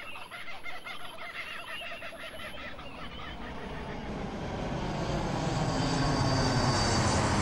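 Rapid chattering bird calls fade out over the first few seconds, then the roar of a jet airliner on its landing approach rises steadily and grows loud toward the end.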